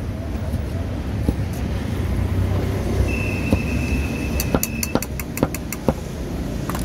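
Quick run of sharp knocks, a cleaver chopping roast pork on a block, over the steady rumble of street traffic. A steady high beep holds for about two seconds just before the chopping starts.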